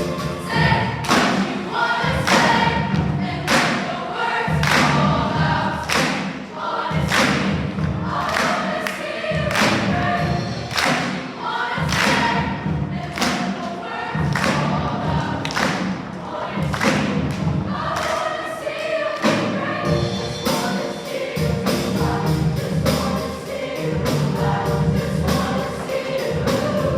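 A choir singing with musical accompaniment over a steady beat, the beat getting busier about three-quarters of the way through.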